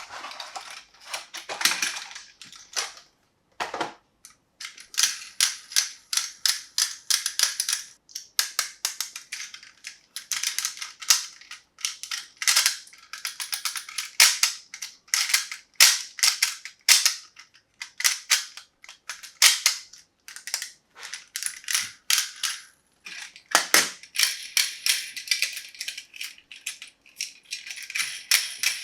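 Small hard toy pieces clicking and clattering against each other as they are handled, in quick runs of sharp snaps with short pauses.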